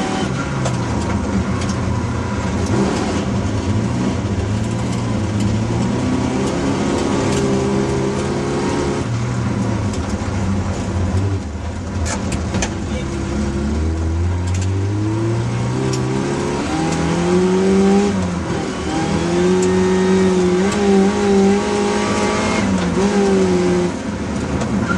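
Hillman Imp's four-cylinder engine heard from inside the cabin, revving hard and dropping back through gear changes. The pitch climbs steadily about halfway through, falls sharply, then is held high and wavering near the end, with a few sharp clicks around the middle.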